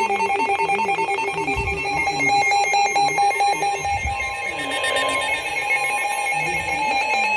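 Electronic emergency alert tones: a fast, ringing beep pattern that changes about four seconds in to a steady alert tone, with lower wavering tones underneath.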